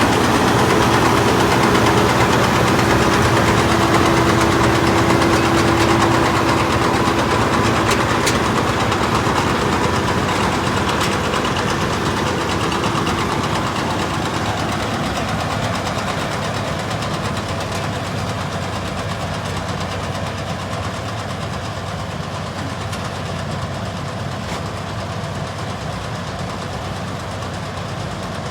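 Tractor engine and New Holland Roll-Belt 150 CropCutter round baler machinery running steadily. A held whine sits over the engine for the first several seconds, and the whole sound slowly grows quieter.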